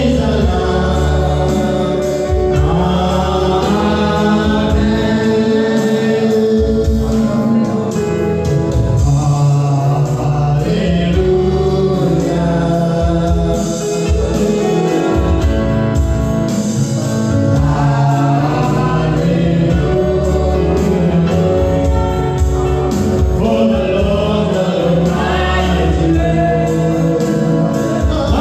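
Gospel music: a choir singing with instrumental accompaniment and a steady bass line.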